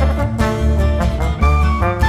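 Background music with a steady beat and a melody of held notes.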